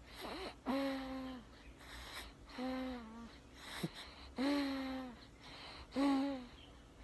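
A chick about six weeks old snoring: a short, pitched, hum-like wheeze with each breath, about every two seconds, four times.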